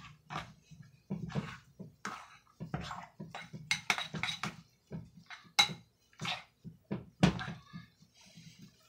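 Metal spoon stirring thick biscuit dough in a ceramic bowl: repeated scrapes and knocks of the spoon against the bowl in quick, uneven strokes.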